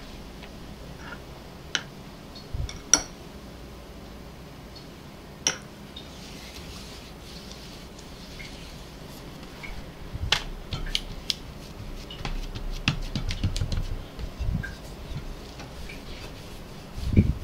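Hands pressing and smoothing a thin sheet of dough on a wooden board, with scattered sharp taps and clicks against the board and soft rubbing. Near the end come low thuds as a wooden rolling pin goes onto the dough.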